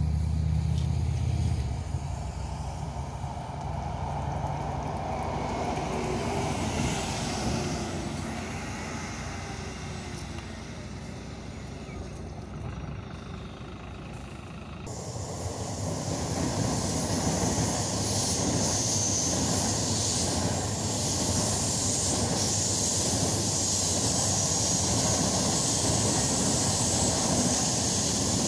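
A city bus drives past with its engine humming, loudest in the first seconds and fading as it moves away. After an abrupt cut about halfway through, a TGV train rolls past on the tracks with a steady hiss of wheels on rail.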